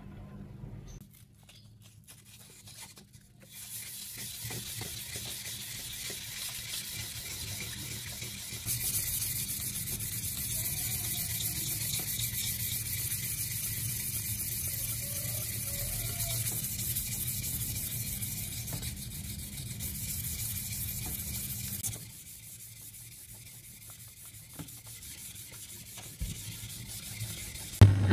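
A hand-held sharpening stone rubbed back and forth along a steel knife blade: a steady, gritty scraping that gets louder about a third of the way in and drops away sharply later on.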